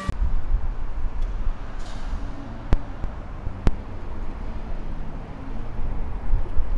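Outdoor ambience: an uneven low rumble of wind and road traffic, with two sharp clicks about a second apart near the middle.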